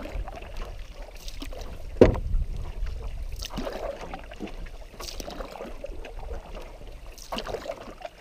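Canoe paddle strokes pulling through lake water, with wind rumbling on the microphone. About two seconds in comes a single loud thump.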